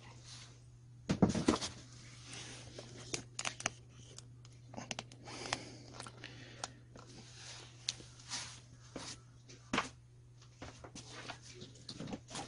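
Handling noise as power drills and other objects are moved about and set down: scattered clicks, knocks and rustles, with a louder knock about a second in, over a steady low hum.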